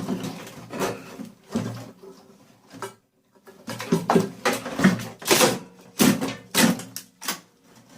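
Hand tools and hands working on a microwave's metal and plastic parts while it is stripped for scrap: irregular knocks, clatters and scrapes, with a short pause about three seconds in.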